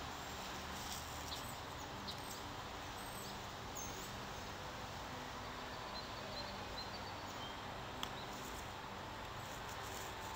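Faint outdoor background noise with a few short, distant bird chirps, and one small click about eight seconds in.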